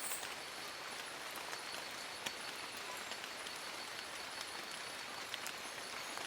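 Steady rain falling in a forest, a constant hiss with individual drops tapping irregularly on leaves.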